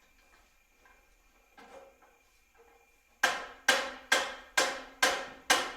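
Hammer striking metal on metal, driving a stuck axle out of a motorcycle wheel: after about three seconds of near quiet, six sharp ringing blows come about two a second.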